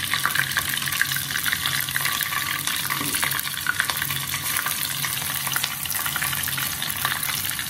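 Hot oil sizzling and crackling steadily as rice-flour-coated coral mushroom pieces deep-fry in a small saucepan.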